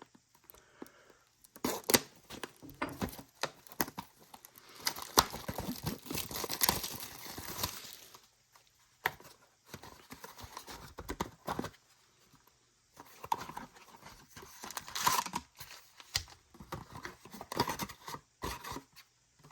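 Pokémon card product packaging being torn open by hand: irregular tearing and crinkling with sharp clicks and scrapes. It comes in several bursts with short lulls between them.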